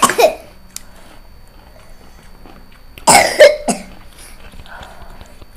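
A person coughing in two short loud bouts, one at the start and another about three seconds in, their throat burning from extremely spicy Buldak noodles.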